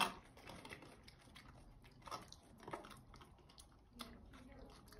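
Pet macaque eating off a spoon: faint chewing with scattered small clicks, the spoon tapping the plastic food tub.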